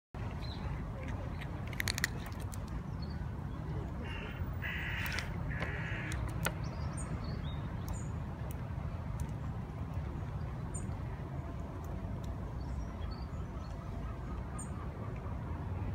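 A bird cawing three times, harsh half-second calls about four to six seconds in, with a few faint high chirps from small birds later, over a steady low outdoor rumble.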